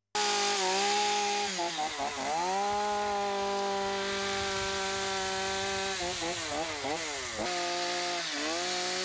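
Two-stroke chainsaw running at high revs and cutting wood. Its pitch sags and recovers several times, about a second and a half in, around six to seven seconds, and near the end, as the chain bites in and is eased off.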